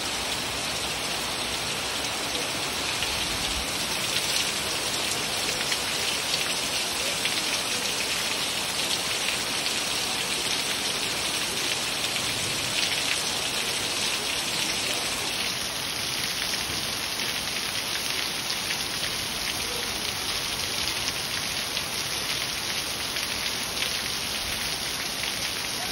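Heavy rain falling steadily, with water pouring off the edge of a tiled roof.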